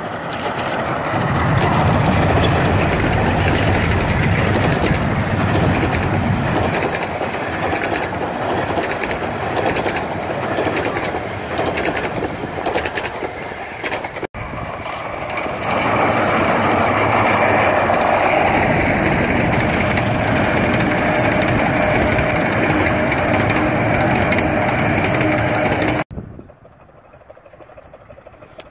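Double-headed 15-inch gauge miniature steam train passing close over a small rail bridge: wheels clattering on the rails and the locomotives' exhaust, loud and steady. The sound cuts off suddenly near the end, leaving a much quieter, distant train.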